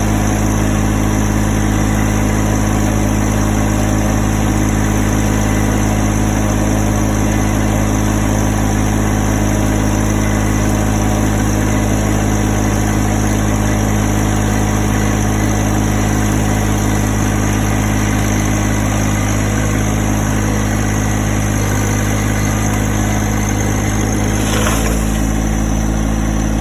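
An engine running steadily at constant speed, with a brief sharp knock near the end.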